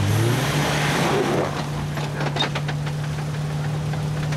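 Off-road Jeep's engine running at low, steady revs, its note stepping up slightly just after the start. A short run of knocks and clicks comes about two seconds in.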